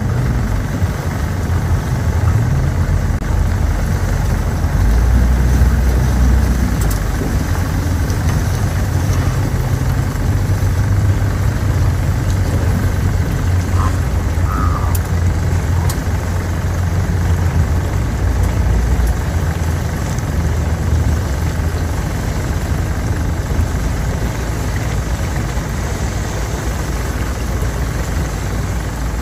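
Boat motor idling steadily with a low rumble.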